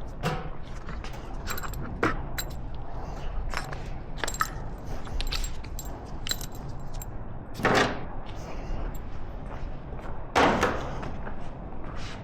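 Metal hand tools and hardware clinking and clattering as they are handled, with many small clicks. Two louder, longer clatters come about 7.5 and 10.5 seconds in.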